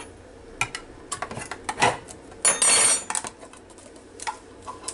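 Ring-pull lid of a steel soup can being opened: a few small metal clicks, then a brief scraping rip about two and a half seconds in as the lid peels back, followed by more light clicks.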